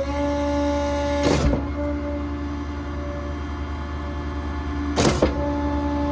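Putzmeister 58Z concrete pump kit running on its Mack truck, a steady hydraulic whine over the diesel, with two sharp bangs about four seconds apart as the pump changes stroke. It is the standard self-correction of the pump kit when first fired up cold.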